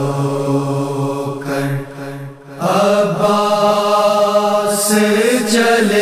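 A man's voice chanting a noha, the Shia Muharram lament, in long drawn-out notes. A low held note gives way, after a short breath about two and a half seconds in, to a higher held note that wavers near the end.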